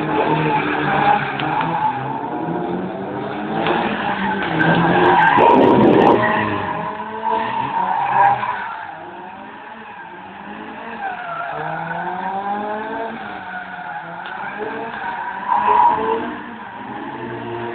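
Car engine revving up and down over and over as the car spins donuts on wet tarmac, with its tyres skidding. It is loudest about five to six seconds in, drops back around ten seconds, and surges again near sixteen seconds.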